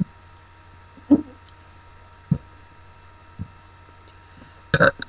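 A few soft, isolated mouth and throat clicks and gulps, about one a second, as a young woman works up a burp. A short, sharp, breathy burst comes near the end.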